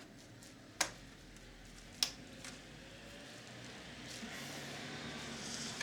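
Two sharp clicks about a second apart and a softer one just after, then a faint rustle that slowly grows: a screwdriver and hands working on the screws of a Sharp VC-573E video recorder's tape mechanism during disassembly.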